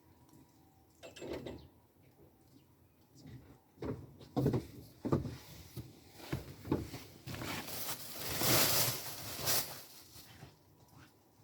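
Rustling and knocking from laundry being hung out to dry: a string of short scuffs and knocks, then a longer rustle about eight seconds in.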